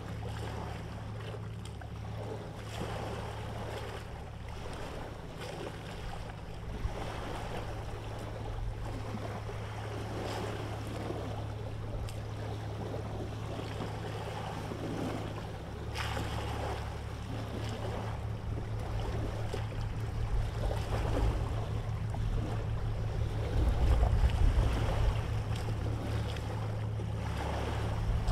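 Steady low drone of a boat's engine under a rush of water and wind. The engine throbs more strongly and the sound grows louder in the last few seconds.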